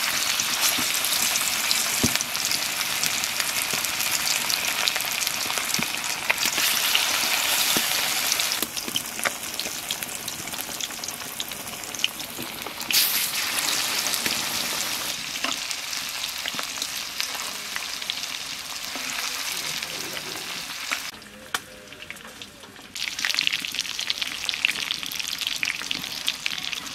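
Marinated chicken leg pieces deep-frying in hot vegetable oil and ghee in an aluminium kadai, with a dense, crackling sizzle that is loudest at first as the pieces go into the oil. The sizzle eases somewhat later on, drops away briefly a few seconds before the end, then comes back.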